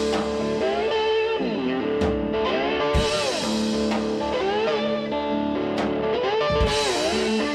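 Background rock music led by electric guitar, with gliding, bent notes.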